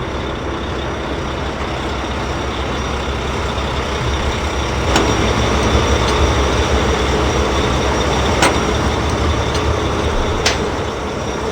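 Truck engine running steadily with a deep rumble, a little louder through the middle, with three sharp clicks about five, eight and a half and ten and a half seconds in.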